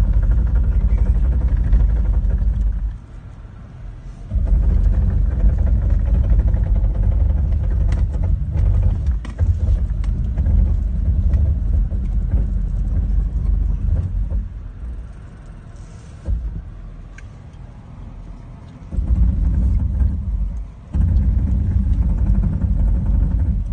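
Vehicle driving on a rough dirt trail, heard from inside the cabin: a loud low rumble that drops away abruptly for a few seconds at a time, about three seconds in and again from about fourteen to nineteen seconds, then returns.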